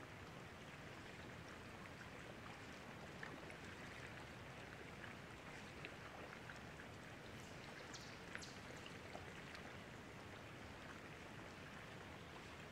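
Faint steady lapping and trickling of lake water against a boat hull, with a few small scattered ticks.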